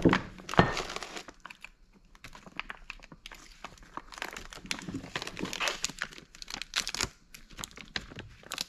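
Plastic packaging crinkling and rustling as it is handled, in a run of short irregular crackles, with a single knock about half a second in.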